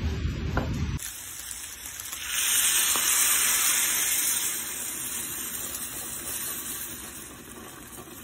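Tomato sauce sizzling and hissing as it is poured into a glass dish of meat sitting on a gas-stove burner. The sizzle swells up about two seconds in, then slowly dies down.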